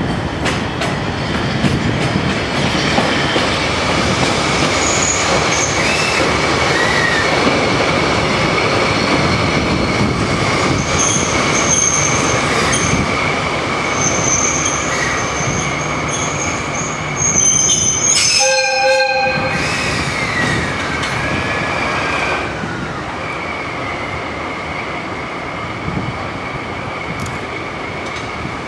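Freight railway yard noise: steel wheels squealing and rumbling over the track as a diesel locomotive rolls in. A short horn blast sounds about two-thirds of the way through, and a falling squeal follows.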